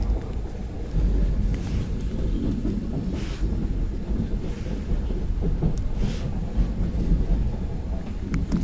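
Steady low rumble of a Gyeongui–Jungang Line electric commuter train running between stations, heard from inside the carriage, with a few faint clicks.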